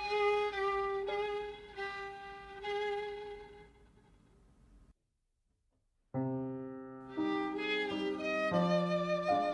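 Solo violin with piano playing a slow waltz. The violin holds long, wavering notes that fade away about four seconds in. After a second of complete silence, the violin and piano come back in with low chords under the melody.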